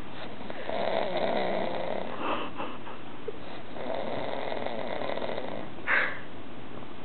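A sleeping man snoring: two long, rough snores of about a second and a half each, then a short sharp snort near the end.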